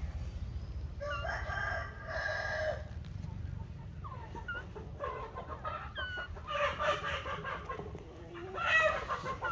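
A run of short animal calls: two longer pitched calls about a second and two seconds in, then scattered squeaky chirps and calls, loudest near the end, over a steady low rumble.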